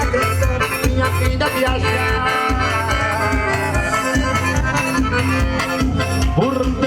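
Instrumental forró pé de serra music: an accordion plays the melody over a low drum beat pulsing about twice a second, with percussion ticking about four times a second.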